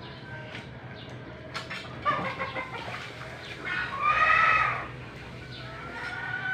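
Chickens calling in the background: a short falling call about two seconds in and a louder drawn-out call about four seconds in. Under them, faint scraping and light knocks of hands rubbing hair off a goat carcass.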